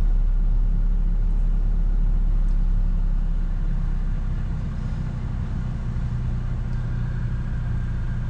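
Kia Forte four-cylinder engine idling steadily just after starting, on newly fitted ignition coils meant to cure a misfire at idle; the level eases slightly about halfway through.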